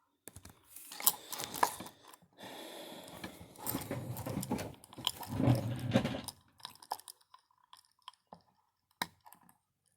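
Close-up handling of a pocket watch: crackling rubs and small clicks as the crown, pulled out to its first position, is worked to set the date. These thin out to a few scattered faint clicks over the last three seconds.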